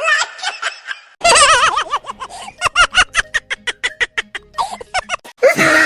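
A person laughing: warbling laughs at first, then a long run of quick ha-ha pulses, about five a second, with a louder burst near the end.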